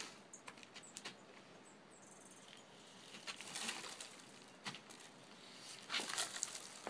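Birdseed thrown by the handful and pattering and rustling on the ground, in two stronger bursts about three seconds in and again near the end, with scattered small ticks between.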